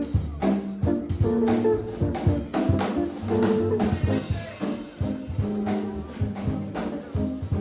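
Small jazz band playing live: an electric jazz guitar comping chords over a drum kit, in an even rhythm.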